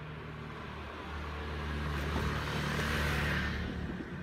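Motor scooter passing close by on the street, its engine and tyre noise swelling to a peak about three seconds in and then falling away.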